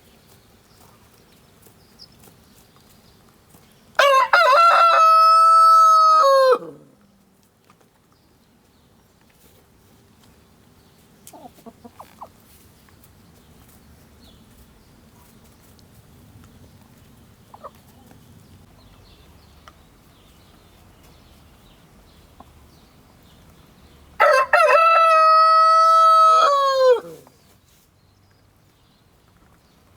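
A rooster crowing twice, about twenty seconds apart; each crow is a loud, long held call of nearly three seconds that drops in pitch at the end. Hens cluck softly now and then in between.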